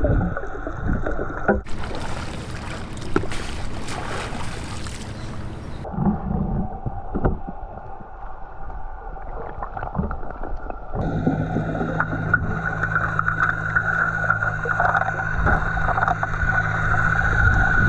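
Underwater sound of a motorboat's engine and propeller carried through the water: a steady hum that grows stronger about eleven seconds in. Scattered clicks and knocks from handling near the bottom, and a few seconds of rushing hiss near the start.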